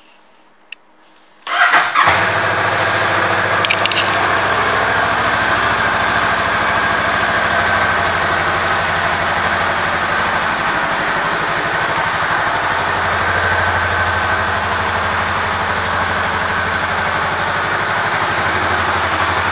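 2019 Honda Rebel 500's 471 cc parallel-twin engine is started after a single click: it catches at once, about a second and a half in, and settles into a steady idle.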